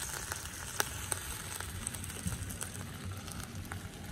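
Lamb shanks with onion and garlic sizzling in a cast-iron camp oven over a wood fire: a steady hiss with scattered sharp pops.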